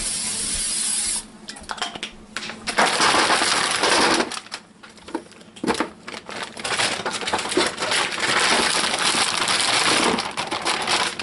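Aerosol cooking spray hissing onto an aluminium sheet pan for about a second. Then a bag of store-bought pre-cooked chicken wings is poured out, and the pieces clatter and rattle onto the metal pan in several rushes.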